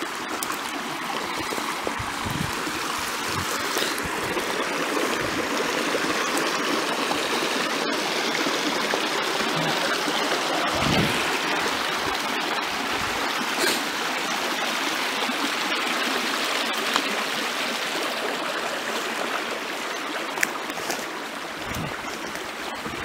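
A small rocky creek running, a steady rush and babble of water, with a few faint knocks and thumps over it.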